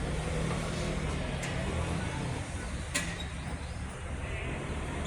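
Steady low rumble, with two sharp clicks about a second and a half and three seconds in, and a bird's short rising chirp right at the end.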